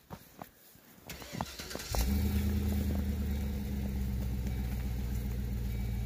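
A few faint clicks and knocks, then about two seconds in an engine starts and runs at a steady low hum.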